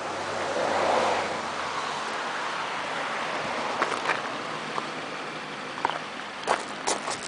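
Wind buffeting the microphone as a steady rushing noise that swells about a second in, with scattered short clicks and crunches near the end.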